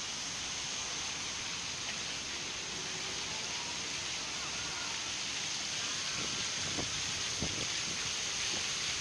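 Small fountain jets splashing steadily into a stone basin, an even rush of falling water.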